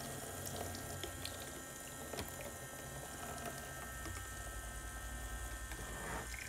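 Thin stream of water from a toy play sink's faucet running into the basin and into a plastic cup held under it, with a few light plastic clicks.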